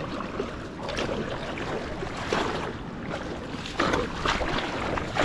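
Steady rushing noise of wind and water aboard a small boat on open water, with a rumbling low end from wind on the microphone and a few short, sharper splash-like sounds.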